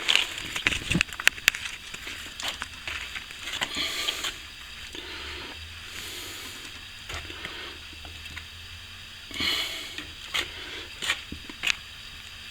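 Small plastering scraper working wet plaster into a hole in a brick wall: irregular scraping and squishing, with many light taps and clicks of the blade.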